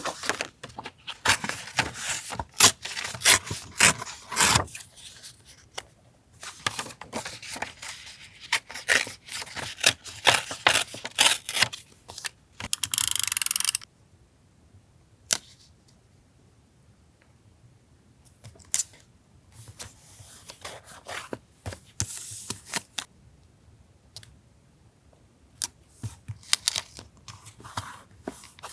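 Paper and stationery being handled for a journal collage: quick rustles, taps and clicks, with one steady tearing sound lasting over a second about halfway through, then sparser, quieter handling.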